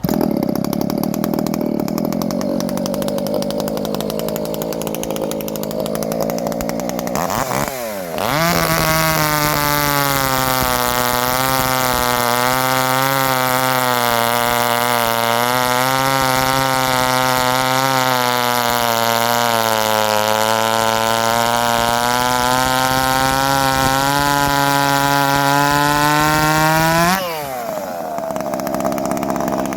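Ported Shindaiwa 390sx two-stroke chainsaw running at part throttle for several seconds, then opened up to full throttle about 8 s in and held there for about 19 s as it cuts through a log, the pitch sagging slightly under load and rising as the cut finishes. It then drops back to a lower speed near the end.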